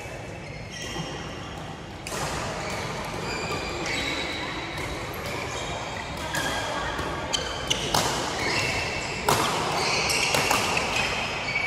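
Badminton play on an indoor court: sharp racket strikes on a shuttlecock and short high squeaks of court shoes, over voices in the background.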